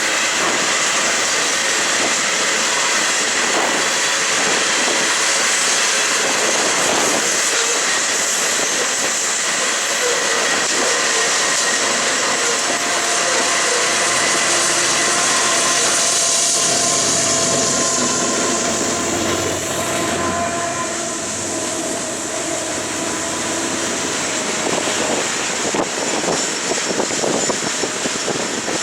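A long Union Pacific coal train rolling past on a curve, its steel wheels running on the rails in a steady rumble. About halfway through, several steady high wheel-squeal tones come in as the flanges rub on the curve, fading out near the end.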